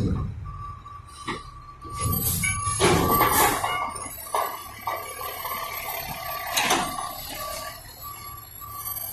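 Heil front-loader garbage truck maneuvering, its backup alarm beeping in a steady repeating tone over the diesel engine running. Louder bursts of noise about two to three seconds in, and a sharp clank near seven seconds.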